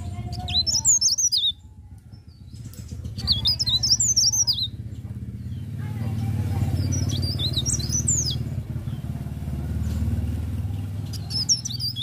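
Caged cikrak daun, a small leaf warbler, singing short bursts of fast, high, twittering notes: three phrases of one to two seconds with pauses between, and a fourth starting near the end. A steady low rumble runs underneath.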